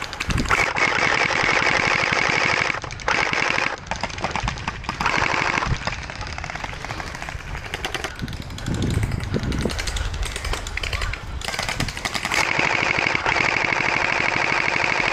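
Hydro Strike Pulsar Pro electric gel blaster firing full-auto in long bursts, a fast rattle of shots. The longest bursts come in the first few seconds and again near the end, with a quieter stretch in the middle.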